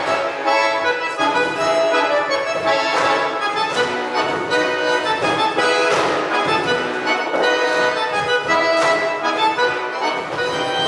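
Accordion playing a traditional folk tune, with steady held notes and chords.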